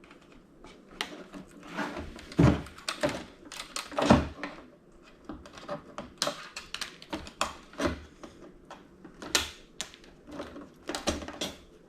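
Irregular clicks, rattles and knocks of a small flat-screen TV's plastic and metal parts being handled and pried apart during disassembly, with two heavier thuds about two and a half and four seconds in.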